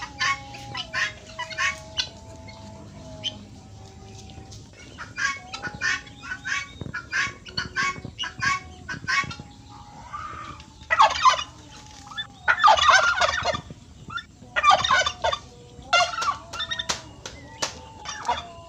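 Domestic fowl calling over and over in short calls. Several louder bursts of rapid calls come in the second half.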